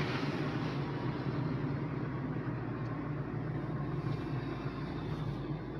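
Tata Tigor car on the move, heard from inside the cabin: a steady rumble of tyres, road and engine with no distinct knock standing out.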